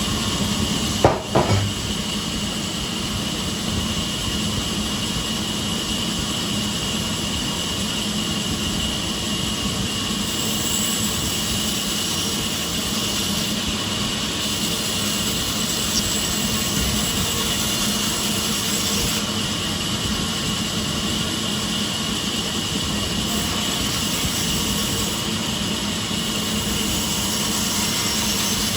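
Sawmill machinery running steadily, a constant mechanical drone with a fixed hum and a high whine, with one short knock about a second in.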